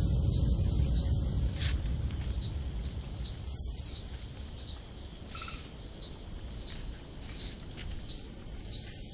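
Insects chirping at night: a steady high trill with regular pulses about three times a second, over a low rumble that eases after the first couple of seconds.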